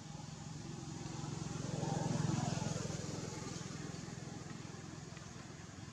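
Engine of a passing motor vehicle: a low, evenly pulsing hum that grows to its loudest about two seconds in, then slowly fades away.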